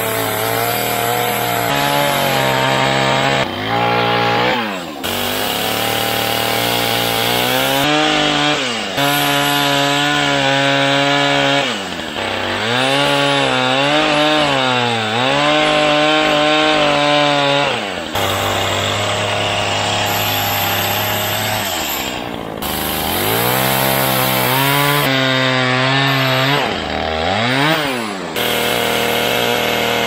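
Gas chainsaw running at high revs, cutting through a weathered timber beam to take off its rotten end. The engine pitch sags each time the chain bites into the wood and climbs back as it frees up, several times over.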